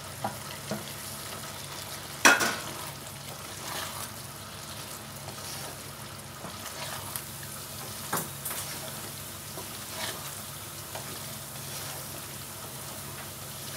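Okra sizzling in a thick masala gravy in a nonstick kadhai as a wooden spatula stirs it through, a steady frying hiss. One sharp knock on the pan comes about two seconds in, and lighter knocks follow later.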